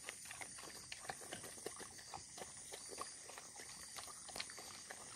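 Dogs eating rice off newspaper: irregular, quick smacking and chewing clicks.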